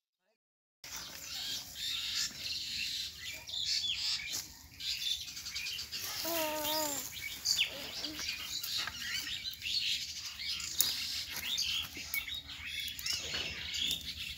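Many small birds chirping and twittering without pause, starting about a second in after a moment of silence. About six seconds in, a short wavering call rises over them.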